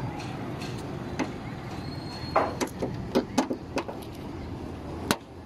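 Small plastic clicks and scrapes as an LED side repeater lamp is pressed into its opening in the fender, ending in one sharp snap about five seconds in as it seats. A steady low hum runs underneath.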